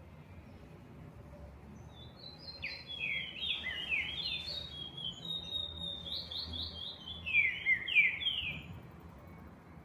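Trinca-ferro (green-winged saltator) singing: a long run of quick, downward-slurred whistled notes, starting about two seconds in and ending about a second before the end, loudest near the end.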